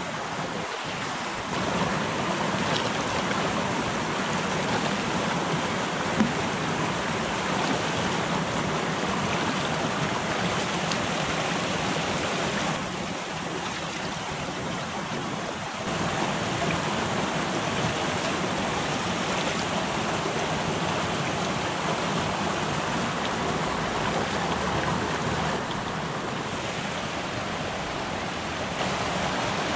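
Shallow mountain stream rushing steadily over rocks and gravel, growing louder and quieter in a few steps. There is one small click about six seconds in.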